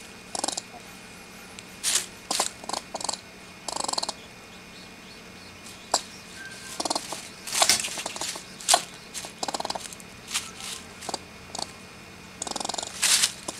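Eastern gray squirrel chattering in more than a dozen short bursts of rapid, buzzy pulses, the loudest a little before the end. It is the agitated threat call of an upset squirrel held in a live trap.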